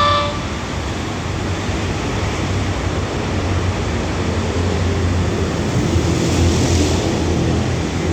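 Alsthom diesel-electric locomotive idling at a standstill, a steady low hum under a constant rushing noise, with a brief high tone right at the start and a little more hiss about six seconds in.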